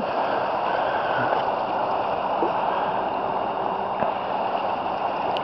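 Flooded river's current rushing steadily past, an even wash of moving water.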